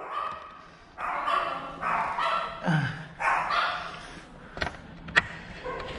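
A dog barking, a run of about five barks over three seconds, followed by two sharp clicks.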